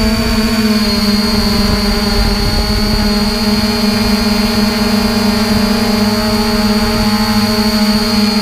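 Quadcopter drone's electric motors and propellers running steadily while it hovers, heard from the drone's own camera: a loud, even buzz with a low hum and a high whine held at a steady pitch.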